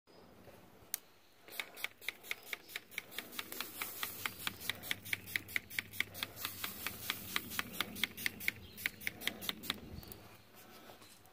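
Pump spray bottle of Parkay butter spray being pumped rapidly over chicken wings, a fast, even run of short spritzing clicks, about five or six a second, for some seven seconds, basting the wings on the grill.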